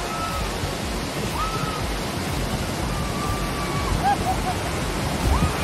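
Water rushing down a water-park tube slide's channel, a steady noisy wash of churning white water.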